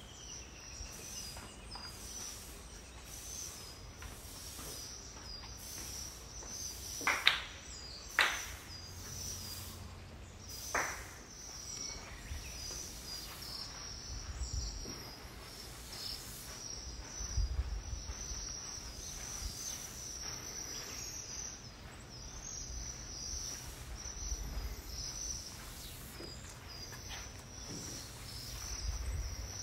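Insects chirping steadily in a high-pitched, rapidly repeating pattern. Two sharp knocks about a second apart, the loudest sounds, come about a quarter of the way through, and a low rumble comes and goes.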